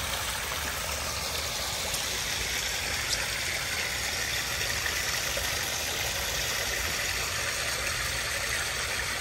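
Koi pond waterfall: water running and splashing steadily.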